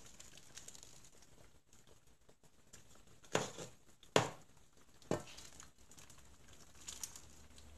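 Metal ladle scooping soup from an aluminium pot into a ceramic bowl: three short clinks and splashes about three and a half, four and five seconds in, and a fainter one near the end.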